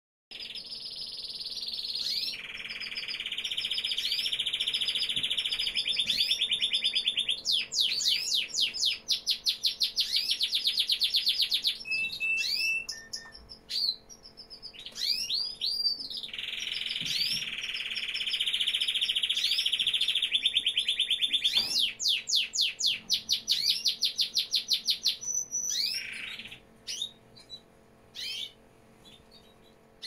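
Canary singing in two long song phrases, each about ten seconds of rolling trills and fast runs of repeated chirps. There is a short break of scattered notes midway, and the song trails off into single chirps near the end.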